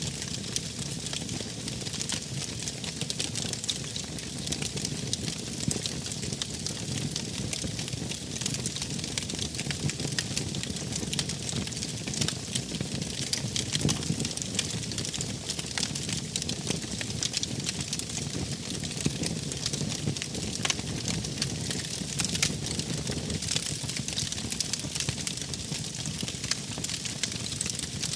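Wood fire burning steadily, with continual small crackles and pops over a low, even rumble.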